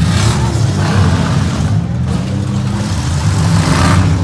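Minivan and small-truck engines running and revving, with two louder, harsher noisy surges: one right at the start and one building about three seconds in.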